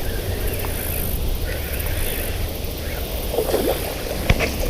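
Wind rumbling on the microphone, with a few short splashes and clicks in the last second and a half from a hooked bass being played in at the bank.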